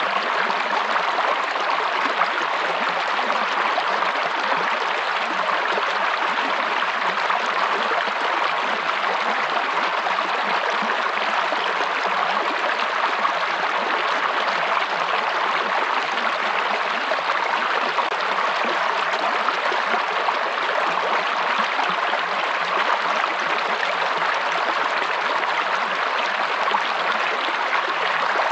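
Running water of a stream, flowing steadily and evenly with no breaks.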